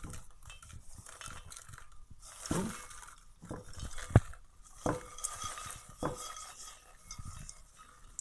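Freshly popped popcorn being poured into a glass bowl: a dry rustling of popped kernels tumbling in, broken by knocks and clinks of cookware against the bowl, the sharpest about four seconds in.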